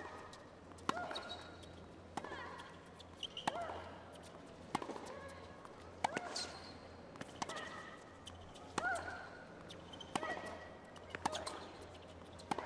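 Tennis rally: racquets strike the ball in a steady back-and-forth about every second and a quarter, around ten hits in all. Most hits come with a player's short grunt.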